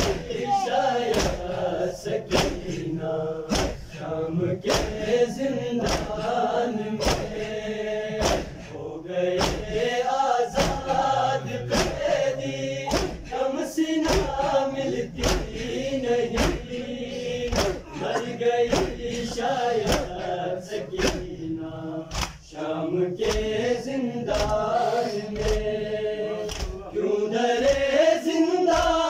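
Crowd of men chanting a noha in unison, with a steady beat of sharp slaps a little faster than once a second: the rhythmic chest-beating (matam) of Shia mourners. The chant grows louder near the end.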